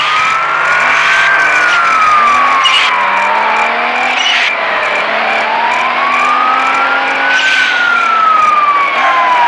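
A siren wailing, its pitch slowly rising and falling in two long sweeps, over a steady high tone and other layered tones.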